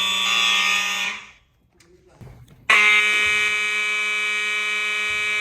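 Simplex 4903 fire alarm horns sounding a steady, harsh buzzing tone. It cuts off about a second in, is silent for about a second and a half, then comes back abruptly.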